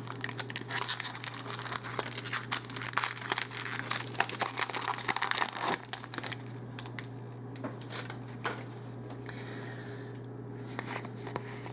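Foil booster pack wrapper being torn open and crinkled, with dense crackling for about the first six seconds, then quieter with a few scattered clicks. A steady low hum runs underneath.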